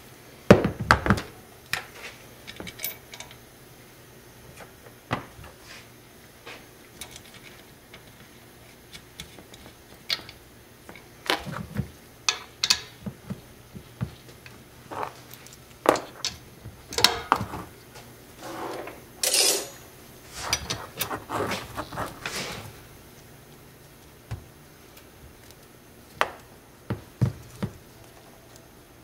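Metal mountain board truck parts and hand tools clicking and clanking irregularly as the hanger, bushings and kingpin are fitted together and the kingpin nut is tightened with a wrench. There is a short rasping scrape a little past the middle.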